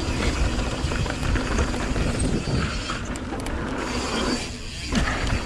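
Mountain bike rolling fast downhill on a gravelly dirt trail: steady wind rush on the rider's camera microphone and tyre noise, with scattered clicks and rattles from the bike and stones.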